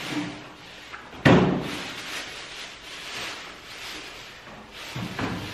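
Crumpled brown packing paper crinkling and rustling as it is unwrapped from a small box of nails, with one loud, sharp crackle a little over a second in.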